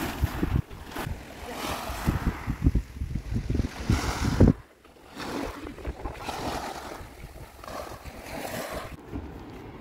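Small waves breaking and washing up a pebble beach, with wind buffeting the microphone in a low rumble that stops abruptly about halfway through.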